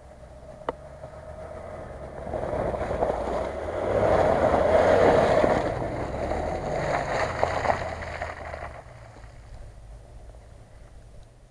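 An SUV driving past along a muddy, slushy track: its engine and tyres grow louder, peak as it passes close about four to six seconds in, and fade as it pulls away.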